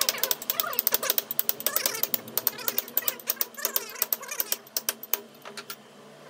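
A quick run of sharp metallic clicks and taps from hand tools working on a truck gearbox. It comes several times a second, then thins out and stops near the end.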